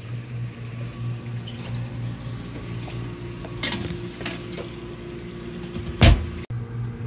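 Metal baking sheet clattering as it slides onto the rack of an RV gas oven, then the oven door shut with a loud thump about six seconds in, over a steady low hum.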